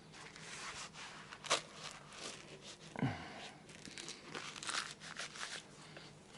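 Plastic clicks and rustling as a home blood pressure monitor and its cuff are handled and set up, with one dull knock about three seconds in.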